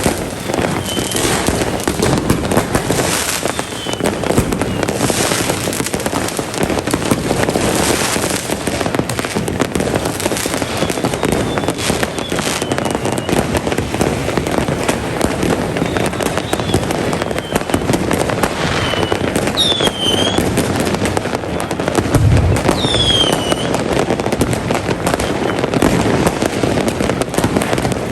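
Fireworks and firecrackers going off in a dense, unbroken barrage of crackling and banging. Several high whistles fall in pitch through it, the clearest near the end.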